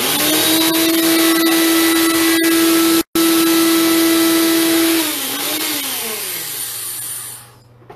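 Small countertop electric blender running at full speed, chopping cauliflower florets into rice: a loud whirr with a steady high whine. It cuts out for an instant about three seconds in, then slows with falling pitch from about five seconds and stops shortly before the end.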